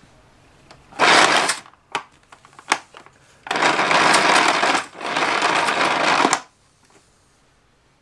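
Retractable cord reel of a retro canister vacuum rewinding its power cord in three runs: a short one about a second in, a few clicks, then two longer runs of about a second and a half each.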